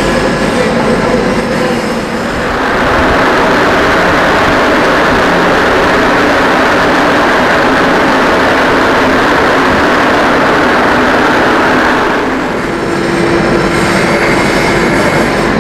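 Generator-room ventilation fan on a ship running under test: a loud, steady rush of air with a faint hum. The rush grows stronger from about two seconds in and eases back near the end.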